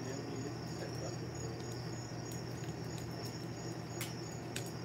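Crickets chirping steadily in a continuous high trill, over a low steady hum. A couple of sharp clicks come near the end.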